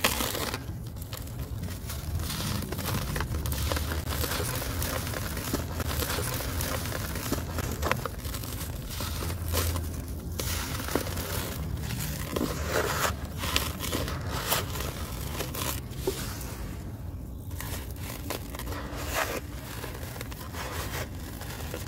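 Dry, gritty soil lumps crushed and crumbled by hand, with a dense crackle of breaking crumbs and grit pouring into a plastic tub.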